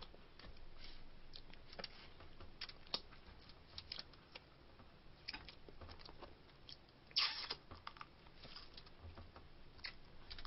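Faint clicks and crackles of cooked snow crab legs being handled, their meat pulled out and eaten, with one louder noise about seven seconds in.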